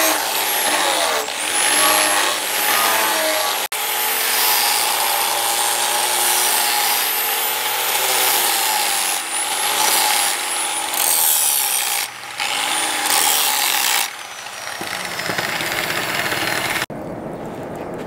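Electric angle grinder with a sanding disc grinding a steel billhook blade: a loud, harsh rasp over a motor whine that rises and falls as the disc is pressed on and eased off. Near the end it gives way to a quieter, steady hiss.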